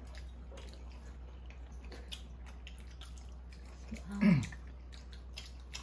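Faint chewing and small eating clicks of fried chicken being bitten and chewed, over a low steady hum. A short vocal sound, falling in pitch, comes about four seconds in.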